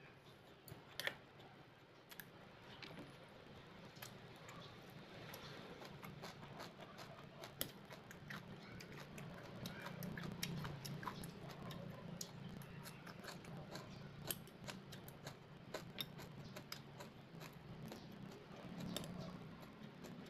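Metal chopsticks clicking and tapping against a ceramic bowl in scattered, irregular clicks, with soft chewing of stir-fried greens between them.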